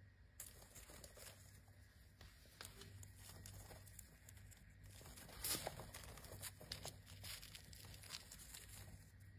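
Faint, irregular crackling and scratching as a praying mantis grapples with a katydid it has seized, the insects' legs and wings scraping against each other and the foam mat. The crackles start about half a second in and are loudest about halfway through.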